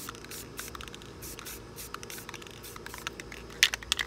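Rust-Oleum 2X aerosol spray paint can giving short hissing bursts of spray. Near the end the can is shaken and a run of quick, sharp clicks follows, the loudest sound here, typical of the mixing ball rattling inside.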